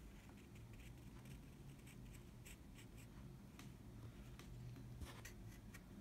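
Faint scratching of a wooden pencil drawing short strokes on paper, over a low steady hum.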